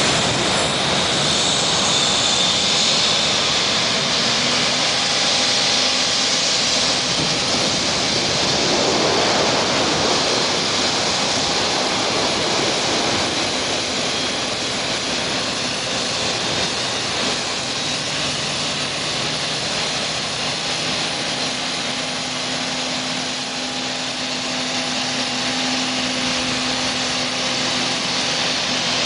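Boeing 737's CFM56 turbofan engines running as the airliner taxis away from the gate: a steady jet rush with a high whine.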